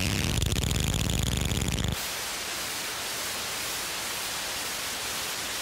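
Lo-fi rock recording's noisy opening: a loud, harsh din that cuts off suddenly about two seconds in, leaving a steady hiss of static.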